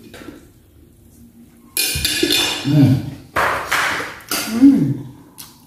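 A woman eating cooked clams, with three loud slurping mouth sounds about a second apart, each carrying a short falling hum.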